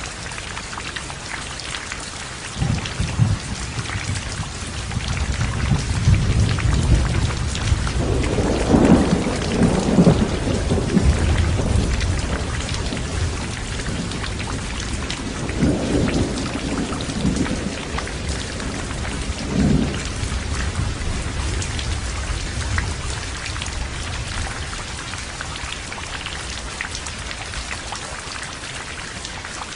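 Heavy rain falling steadily, with a roll of thunder. The low rumble starts a few seconds in, swells to its loudest about a third of the way through, flares twice more and dies away before the end.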